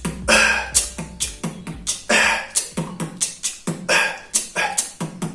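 Vocal beatbox pattern: quick kick and hi-hat clicks with a breathy cough snare, a forced cough-like burst of air, landing about every two seconds.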